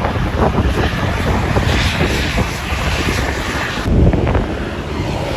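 Bus engine running, with wind buffeting the microphone; a hiss over it stops abruptly about four seconds in.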